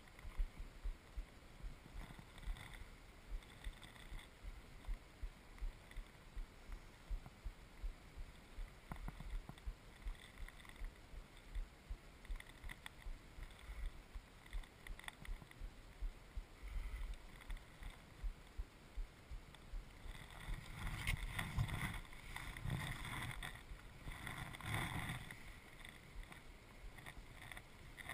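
Low, irregular thumps and faint rustle all through, then, in the last several seconds, louder rustling and clicking as a hand takes hold of a fixed-spool fishing reel and works it.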